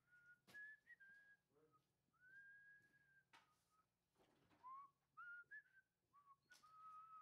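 Faint human whistling of a slow, wandering tune: a string of single notes, some held about a second, some sliding up or down. A few sharp clicks and knocks fall between the notes.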